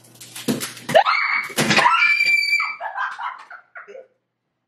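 A watermelon squeezed by dozens of stretched rubber bands bursts open with a sudden splitting burst, followed by high-pitched screaming and laughter.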